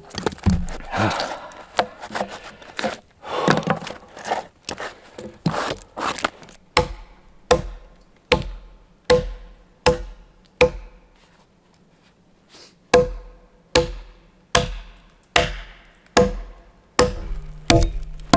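Axe chopping into a log. It starts with quick, irregular blows, then settles into steady strokes about one every 0.8 s, each with a short ring. The blows stop for about two seconds partway through, then carry on.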